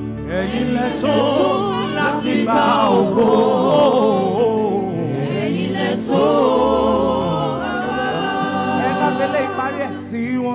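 A vocal group singing a gospel worship song, the voices bending and wavering in pitch through long sung phrases.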